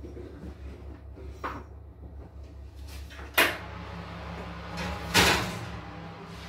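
Metal clatter of an electric oven's door and shelf as a cake tin is put in: a sharp clack about three and a half seconds in, then a louder, longer clatter a little after five seconds. A steady low hum runs under it.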